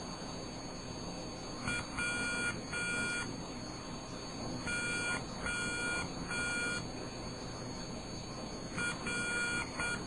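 Buzzer beeping hand-keyed Morse code for a microcontroller decoder: dit-dah-dah (W), then dah-dah-dah (O), then near the end dit-dah-dit (R). The tones are high-pitched, with a steady faint hiss underneath.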